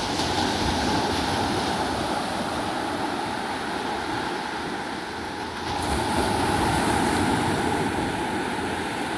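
Sea waves washing onto the shore, swelling louder twice, with wind buffeting the microphone.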